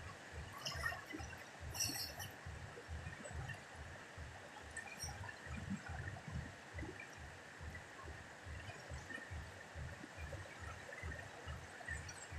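A fast, muddy river rushing steadily past rocks, with a low, uneven rumbling underneath and a couple of brief crackles about one and two seconds in.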